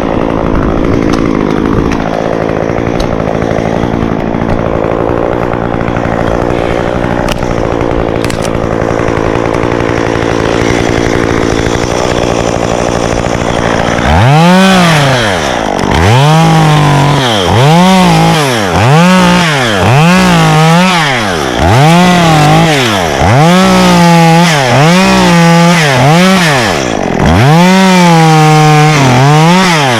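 Stihl two-stroke chainsaw running steadily at low speed for about the first half, then revved up and back down about ten times in quick succession, roughly one rev every second and a half.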